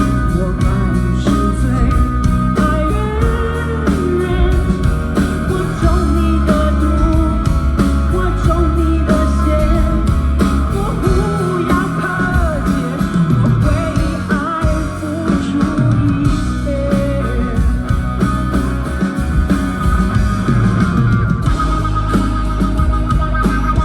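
Live rock band playing loudly: electric guitar lines over bass and drums in a continuous full-band passage.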